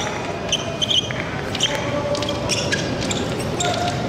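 Fencers' shoes squeaking and stamping on the piste during épée footwork: a run of short squeaks and knocks.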